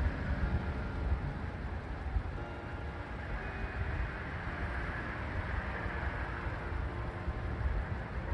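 Steady low outdoor rumble, with faint ringing tones of distant church bells that come and go.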